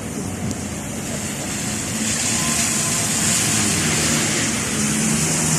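Steady hiss of rain and tyres on a wet road, with a low engine hum. The hiss swells about two seconds in.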